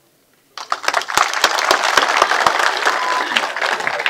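Audience applauding, the clapping starting about half a second in and continuing steadily.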